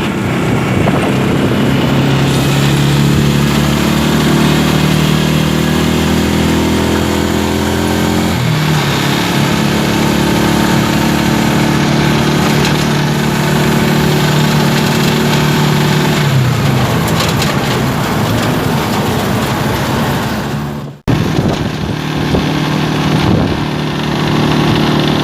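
A motor vehicle's engine running steadily while riding, its note shifting a couple of times as the speed changes, with a brief break near the end.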